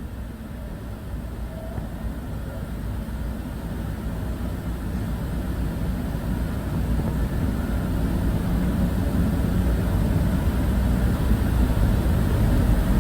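Low rumble of a passing vehicle, growing steadily louder.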